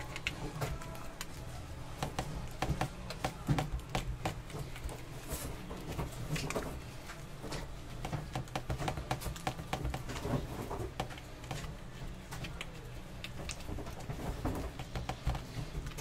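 Gloved hands pressing and patting guokui flatbread dough flat on a glass board: soft, irregular taps and rubbing, over a steady low kitchen hum.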